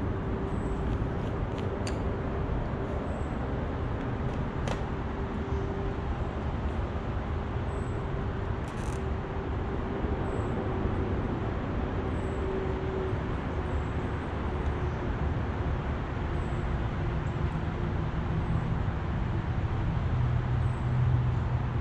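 Steady outdoor background rumble of distant road traffic, with a faint steady hum and a few light clicks.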